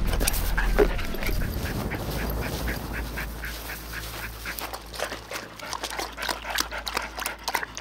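Border collie lapping water from a bowl: a steady run of quick wet laps, about three to four a second.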